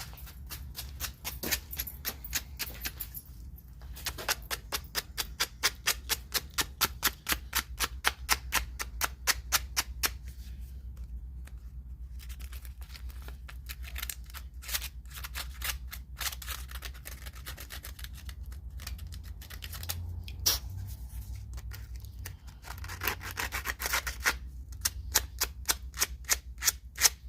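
Spark plugs being scrubbed clean by hand: rhythmic scraping strokes, about three to four a second, in runs broken by short pauses, over a steady low hum.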